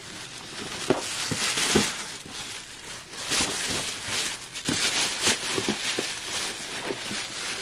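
Plastic shopping bag rustling and crinkling as a cardboard shoebox is pulled out of it, with scattered light knocks from the box.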